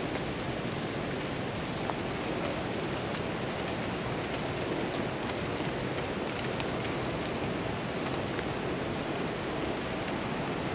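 Steady rush of fast-flowing river water, an even wash of noise with no breaks.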